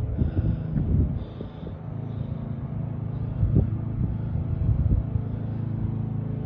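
A steady low engine hum, like a vehicle running, with irregular knocks and rustles over it.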